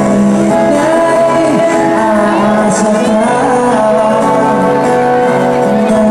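Live music: a song sung into microphones with acoustic guitar accompaniment, played through a PA.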